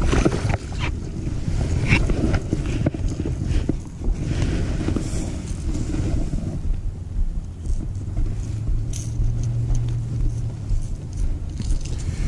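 Wind buffeting the microphone in a constant low rumble, with scattered clicks and knocks from handling the rod, lure and fish. A steady low hum joins it for a couple of seconds past the middle.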